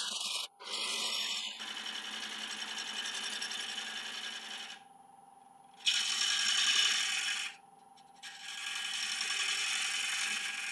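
A turning tool cutting the spinning laburnum bowl blank on a wood lathe, in three long cuts with short breaks between them, over the steady hum of the running lathe.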